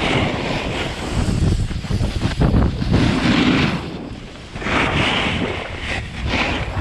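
Wind buffeting the microphone while snowboarding downhill, with repeated swells of hiss from the board's edge carving and scraping across snow.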